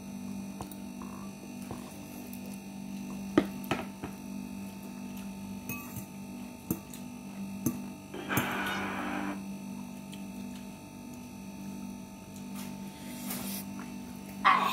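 Someone eating instant pancit canton noodles with a fork: a few sharp clicks of the fork against the bowl, and short noisy noodle slurps about eight seconds in and again near the end. Under it runs a steady low electrical hum.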